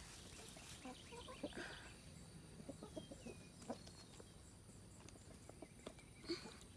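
Chickens clucking faintly, with a few scattered soft clicks.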